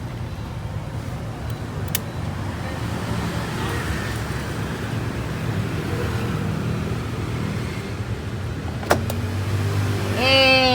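Old Sanyo washing machine running under test: a steady low motor hum, with two sharp clicks, and a short loud tone that falls in pitch near the end.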